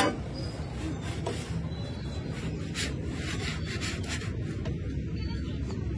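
Metal pizza peel scraping across a floured steel worktable as it is slid under a raw pizza, a run of short scrapes about halfway through, over a steady low background rumble.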